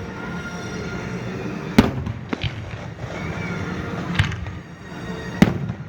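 Aerial fireworks bursting in a display: four sharp bangs, spaced irregularly across the few seconds, over a continuous low background rumble.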